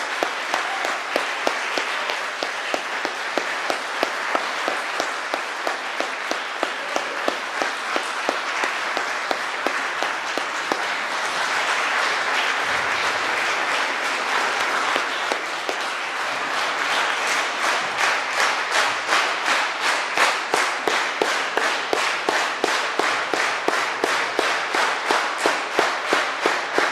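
Audience applauding in an auditorium. About two thirds of the way through, the applause falls into rhythmic clapping in unison, a few claps a second.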